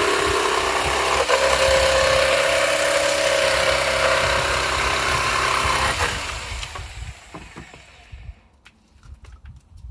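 Electric jigsaw cutting plywood, running steadily, then switched off about six seconds in and winding down.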